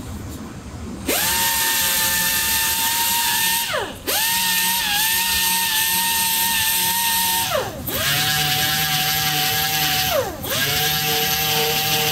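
Air-powered random orbital sander sanding a white plastic motorcycle helmet shell, run in four bursts of about three seconds each. Each burst is a steady whine over a loud hiss, and the pitch falls as the sander spins down between bursts.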